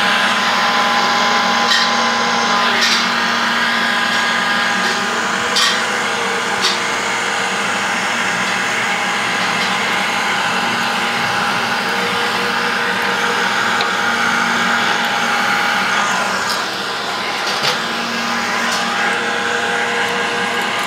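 Electric heat gun running steadily, its fan blowing hot air onto PVC stretch-ceiling film to soften it for stretching around a ceiling diffuser, with a few light clicks now and then.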